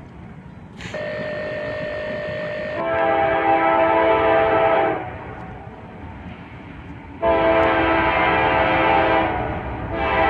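Freight locomotive air horn blowing long chord blasts of several tones. The first starts about a second in and grows louder partway through; a second long blast follows after a pause, and a third begins near the end, with a train rumbling in between.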